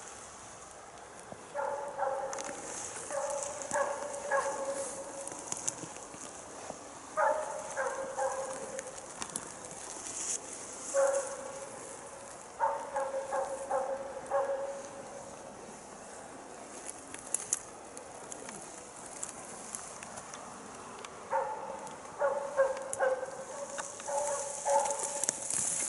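Jämthund (Swedish elk hound) barking in quick runs of three to five barks with pauses between: bay barking (ståndskall), the dog holding a moose at bay.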